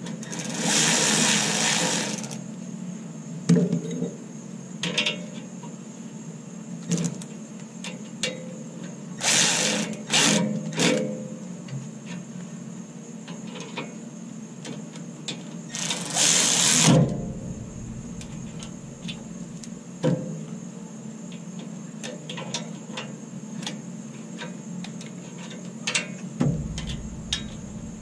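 Cordless electric ratchet running down the brake caliper bolts in short bursts, a two-second run near the start and a few shorter ones around the middle, with light metallic clicks of hand tools between.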